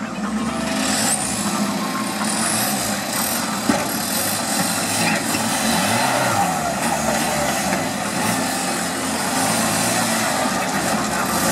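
Off-road trial buggy's engine revving up and down again and again as it crawls over boulders, with a single sharp knock a little over three seconds in.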